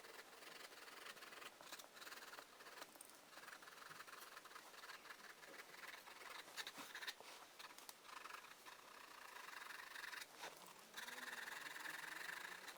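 Faint pencil scratching on paper in many short strokes, with a longer, steadier stretch of scraping near the end.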